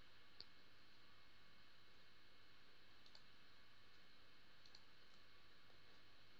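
Near silence with a few faint computer mouse clicks, spread out, as faces are selected one by one.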